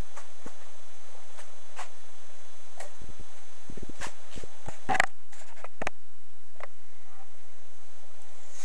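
High-voltage electric arc drawn from two microwave-oven transformers at about 4,000 volts: a steady loud buzz with irregular crackling snaps, thickest in the middle, the loudest about five seconds in.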